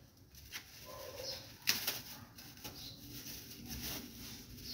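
Plastic bag rustling while lumps of charcoal are taken from it and put into a small charcoal stove, with a sharp crackle a little under two seconds in.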